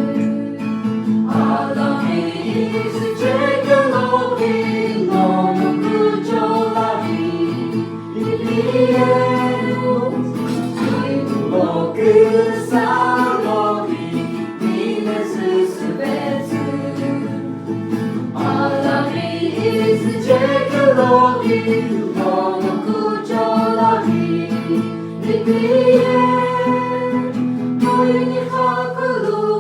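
Music: a song with several voices singing a melody over a steady sustained accompaniment.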